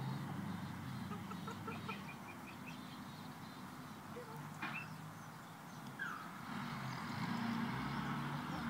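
Domestic hens clucking softly, with a quick run of short, evenly spaced notes in the first few seconds and a single sharp click midway.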